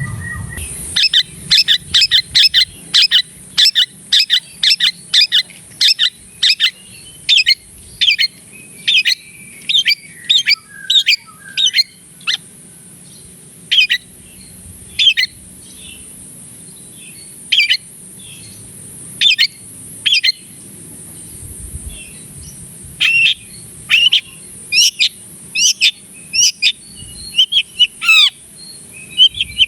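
Long-tailed shrike (cendet) singing repeated short, sharp 'toet' calls: a fast run of several a second at first, then more spaced calls and a few falling notes near the end. A steady high hiss runs underneath.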